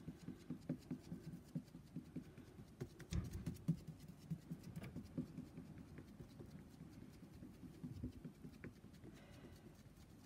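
Foam sponge brush dabbing white acrylic paint onto a wet yellow painted surface, a faint, quick patter of soft taps, several a second, to stipple a texture.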